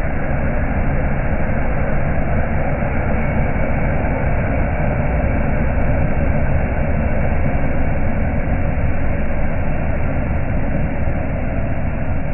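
Lifted Toyota Hilux pickup's engine running loud and steady under heavy load as the truck crawls through mud and rocks on large mud tyres.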